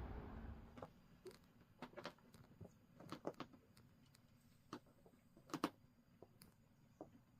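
Faint, irregular clicks and light taps scattered over several seconds, the sharpest about two thirds of the way through, after a low steady rumble fades out within the first second.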